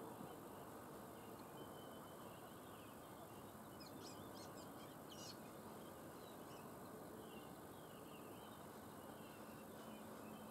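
Small birds chirping and twittering over a faint, steady hiss, with a quick cluster of sharp chirps about four to five seconds in.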